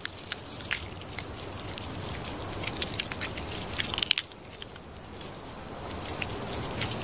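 Scrabbling and clicking of a yellow scorpion (deathstalker) and a camel spider fighting on sand. Many short sharp clicks sound over a steady rustle, with a brief lull about four seconds in.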